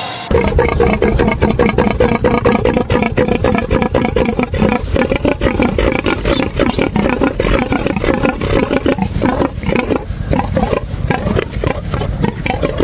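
Bizon Rekord combine harvester working in the field, its diesel engine and threshing machinery running loud, steady and rough. It cuts in just after the start.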